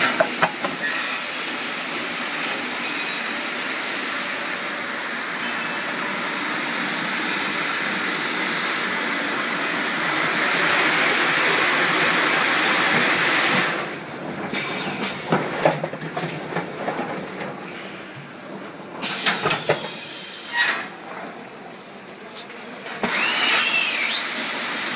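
Water jets spraying inside the rinsing chamber of a 5-gallon bottle washing and filling machine, a steady rushing noise for about the first half. Then it drops, with scattered machine clicks and knocks, and rises again near the end.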